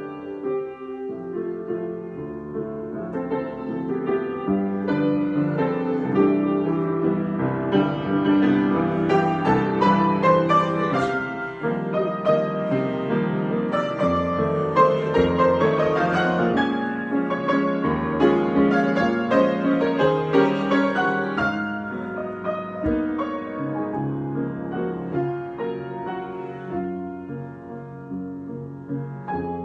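Solo piano improvisation with dense, overlapping chords and runs. It grows louder toward the middle and eases off to a softer passage near the end.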